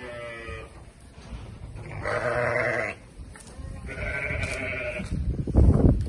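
Sheep bleating three times, with a louder burst of low rumbling noise near the end.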